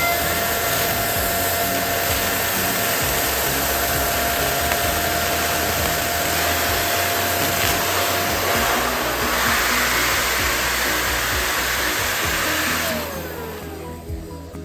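Electric balloon pump blowing air steadily as it inflates a balloon, with a thin steady whistle for the first part. It shuts off about thirteen seconds in.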